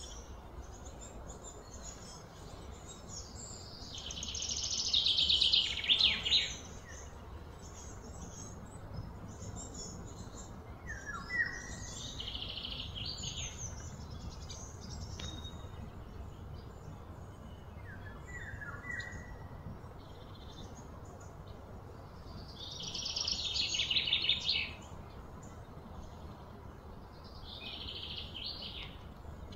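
Birds calling: four rapid, trilling phrases of one to three seconds each, the loudest a few seconds in and again past the middle, with a few short chirps between them, over a steady low background rumble.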